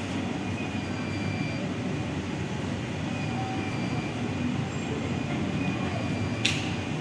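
Steady rumble of a train running through a railway station, with a faint high whine over it and a brief high squeal near the end.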